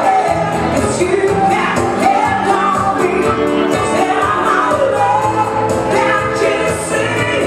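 Live pop band playing: female vocalists singing into microphones over amplified electric guitar, keyboard and a steady beat.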